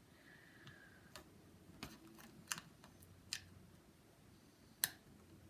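A few faint, separate plastic clicks and taps from a laptop keyboard being pressed down and worked into its seat in the laptop. The loudest click comes a little before the end.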